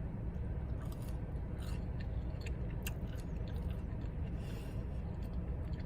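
Quiet chewing of french fries dipped in a Frosty, with a few faint soft mouth clicks over a steady low hum.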